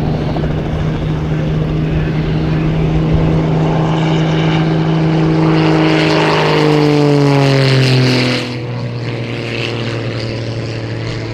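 Edge 540 aerobatic plane's six-cylinder Lycoming engine and propeller droning loudly as it passes low and close. The pitch drops about seven to eight seconds in as it goes by, and the sound then turns quieter as it moves away.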